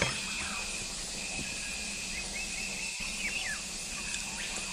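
Garden ambience: a steady high-pitched insect drone, with a few short, falling bird chirps scattered through it.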